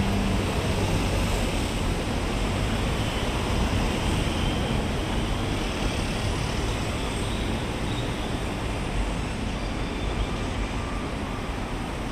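Steady road traffic noise from cars, motorcycles and a bus driving through a multi-lane junction, an even, continuous roar with no single vehicle standing out.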